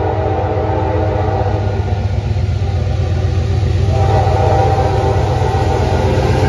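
A CTrail diesel passenger locomotive approaching, sounding its air horn: one blast fades out about two seconds in and another starts about four seconds in, over the low, steady rumble of the train, which grows louder as it comes.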